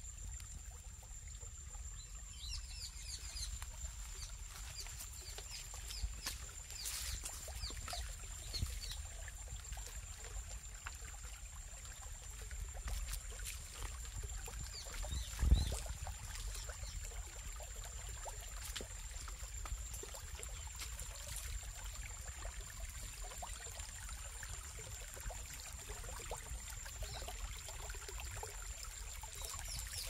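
Shallow rocky stream trickling over stones, with a steady high-pitched whine and scattered faint chirps throughout, and a single thump about halfway through.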